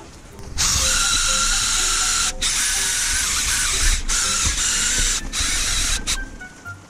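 Cordless impact driver spinning an SK11 "Afro-kun Junior" nylon abrasive wheel against an aluminium engine crankcase: a steady high whirring scrub in four runs, with short breaks where the trigger is let off, stopping shortly before the end.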